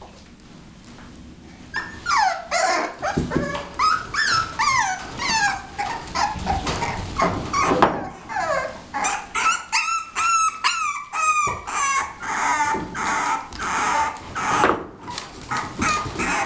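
Six-week-old bulldog puppies yipping and whimpering in high calls that slide down in pitch, mixed with short sharp yaps. The calls start about two seconds in and run on almost without pause.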